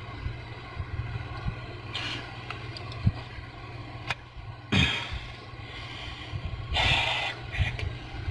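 A hand works a ribbed accessory belt onto its pulleys, making scraping and rubbing noises in a few short bursts with an odd click, over a steady low hum.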